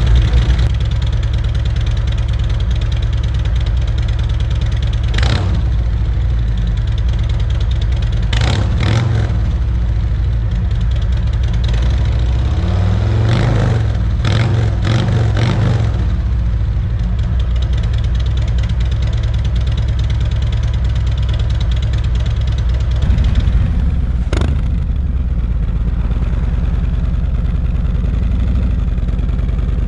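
Harley-Davidson Road Glide's Milwaukee-Eight V-twin idling through Rinehart DBX45 4.5-inch slip-on mufflers, blipped several times, the longest run of revs about 13 to 16 seconds in. Near the end the sound changes to the bike being ridden on its stock exhaust.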